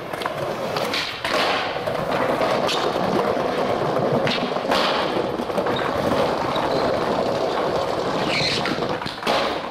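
Skateboard wheels rolling over a tiled floor, with a handful of sharp clacks and thuds as the board is popped and landed.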